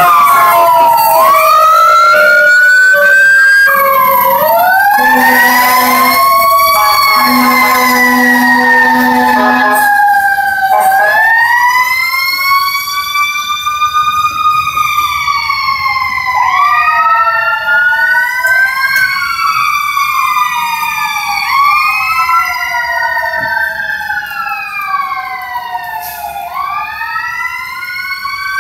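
Fire engine sirens wailing, several overlapping tones gliding up and down, with a short steady low tone sounding twice in the first ten seconds. The sirens are loud at first and grow fainter from about halfway on as the truck moves off down the street.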